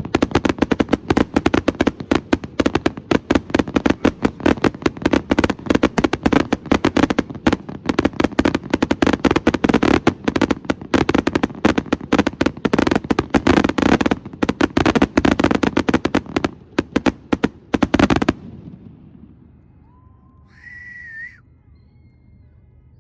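Astroboy consumer fireworks firing their finale: a dense, rapid barrage of reports that cuts off suddenly about 18 seconds in. A brief high-pitched tone sounds a couple of seconds later.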